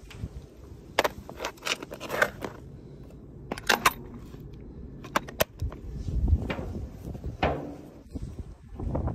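Footsteps on a ship's steel deck, with scattered sharp clicks, knocks and scrapes from the gear being carried.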